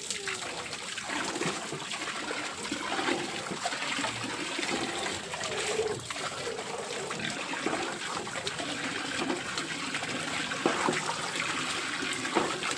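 Water splashing and trickling steadily, with a few faint wet slaps through it.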